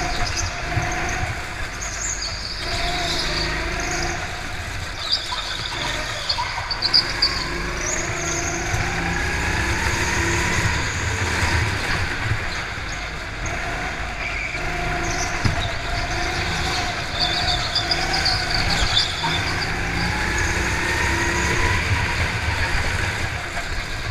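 Go-kart engine heard from the driver's seat, its pitch rising along the straights and falling away into the corners, with the tyres squealing through the turns.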